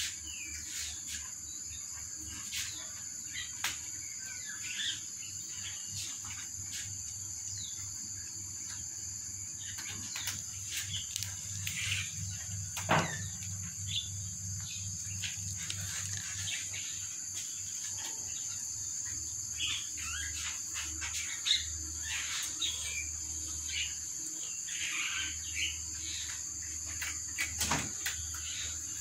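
Crickets chirping in a steady high trill, with scattered sharp clicks and brief high chirps over it.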